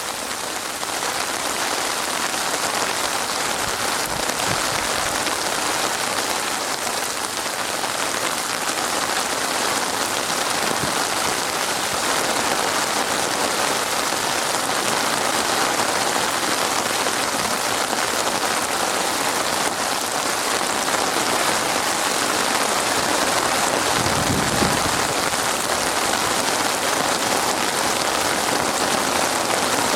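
Steady, dense rain falling on a surface. About 24 seconds in comes a brief low thump.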